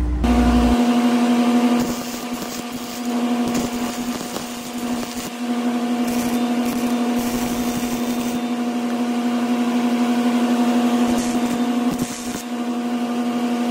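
A wire-feed welder's arc crackling in several short runs as weld beads are laid on a cracked steel mount, over a loud, steady machine hum.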